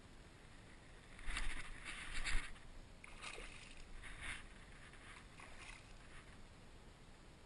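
A hooked pike thrashing at the surface by the fishing line, making a few short splashes; the two loudest come close together a little over a second in, with smaller ones after.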